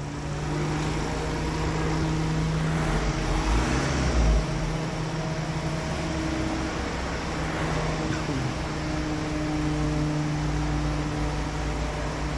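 Ford Transit Custom van's engine running at a steady low idle as the van creeps backwards, a low even hum with a slight swell about three to four seconds in.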